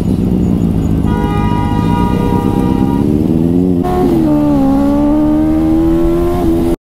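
Motorcycle engine accelerating under way, its pitch climbing steadily. About four seconds in it jumps abruptly to another stretch of the engine pulling and slowly rising again. The sound cuts off sharply at the end.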